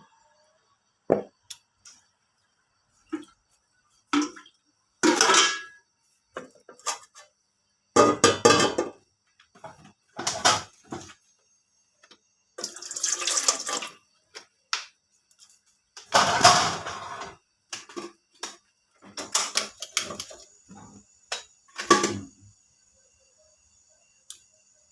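Water running and splashing in short, separate bursts, with some clatter of pots and dishes.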